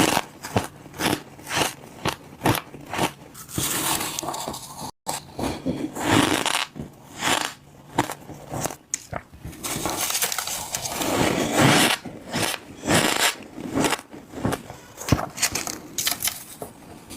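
Ice being bitten and crunched close to the microphone: a long irregular run of sharp, crisp crunches, one after another.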